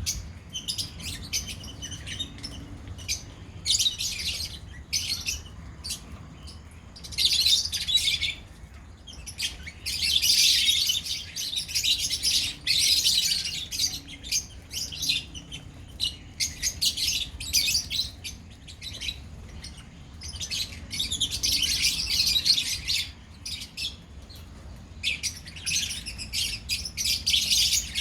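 A colony of small pet parrots chirping and chattering, many birds calling at once in high-pitched bursts, with short lulls between the louder spells. A steady low hum runs underneath.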